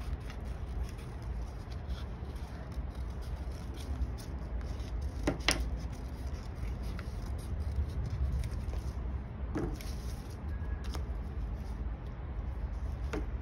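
A few short, crisp sounds of paper being handled, over a steady low hum. The sharpest comes about five seconds in, with more near ten seconds and just before the end.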